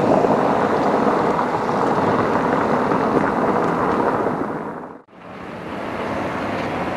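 Steady road and wind noise from a car on a cobbled street, fading out about five seconds in and then fading back in as a steady rumble.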